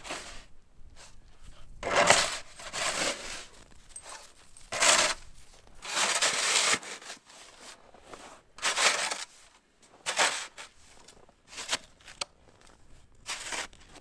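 Snow shovel scraping into packed snow and throwing it aside, in repeated strokes every second or two.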